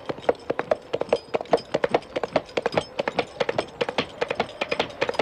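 Two coconut half-shells knocked together to imitate a horse's hooves: a quick, even clip-clop of sharp knocks, as of a horse trotting.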